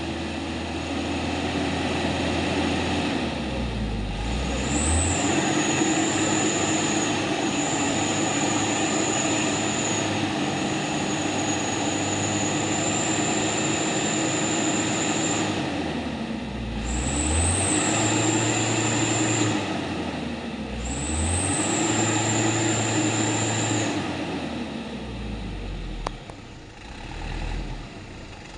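Truck engine held at high revs under load in three long surges, with a high whine riding on it and brief dips between surges, then dropping back toward idle near the end.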